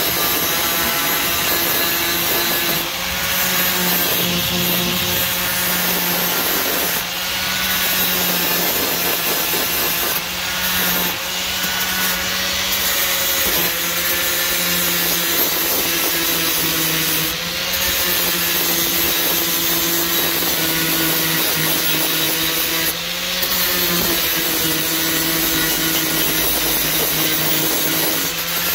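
Angle grinder with a sanding disc grinding down weld seams on a steel car floor pan: a continuous high motor whine over a harsh rasp of disc on metal. The pitch sags and recovers every few seconds as the disc is pressed into the weld and eased off.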